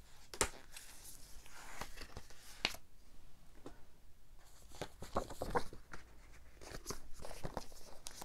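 Cardboard and paper packaging handled: a collector's edition box and slipcase slid apart and their contents taken out, with rustling, scraping and scattered light taps.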